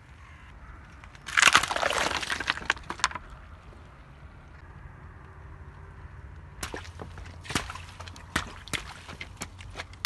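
Things crushed under a car tyre. About a second in comes a loud burst of crunching and cracking lasting under two seconds. Later comes a run of separate sharp pops and clicks as water balloons burst under the tyre.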